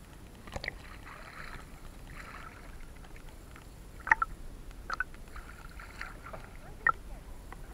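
Sea water sloshing and splashing against a camera held at the surface, with four sharp splashes, the loudest about four seconds in.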